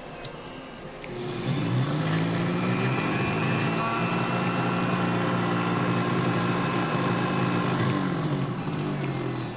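Xiaomi Smart Blender's motor spinning up about a second in after a short beep, running at a steady high speed, then winding down near the end.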